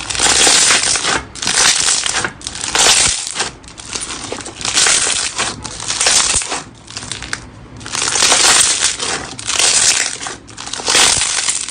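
Slime being squeezed and pressed by hand, in a run of about ten squeezes, each a noisy burst lasting under a second.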